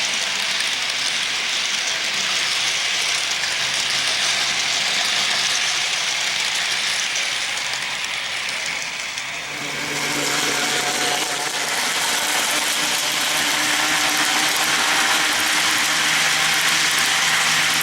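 Model train locomotive with no sound system running along the track: the whir of its motor and gears and the rumble of wheels on rail. About ten seconds in the sound shifts, and a steady hum of low tones joins in.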